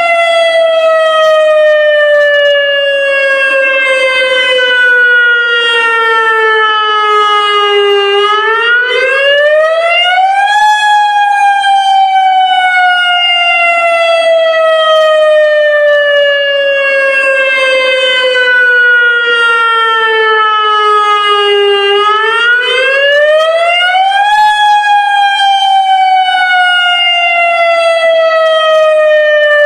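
Federal Signal Modulator electronic warning siren sounding a wail in its monthly lahar siren test. The loud tone with many overtones falls slowly in pitch for about eight seconds, then climbs back up in about two and a half seconds, and this cycle comes round twice.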